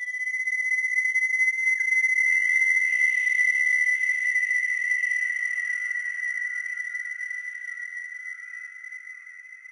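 Electronic music ending on a held high synthesizer tone with faint gliding sweeps. It swells over the first couple of seconds, then slowly fades out.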